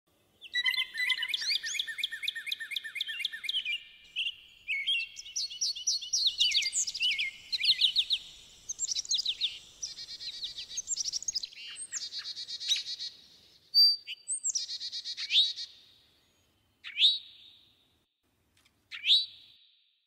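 Several wild birds singing in woodland, a dense overlapping chorus of chirps and trills that thins after about twelve seconds to a few separate calls, a second or two apart.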